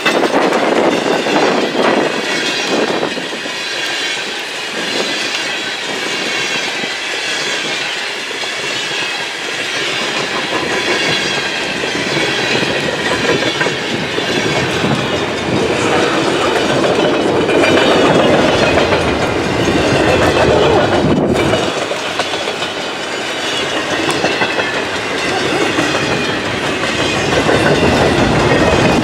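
Freight cars of a long manifest train rolling past close by: steel wheels clattering steadily over the rail joints, the noise swelling and easing a little as the cars go by.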